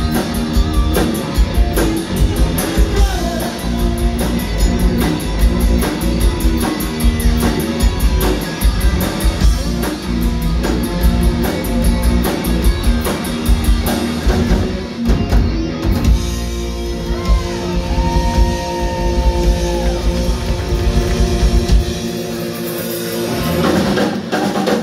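Live rock band playing: distorted electric guitars, bass, a drum kit and a singer. About two-thirds of the way in the drums drop out and the band holds a ringing chord with a sustained sung line over it, and the drums hit again near the end.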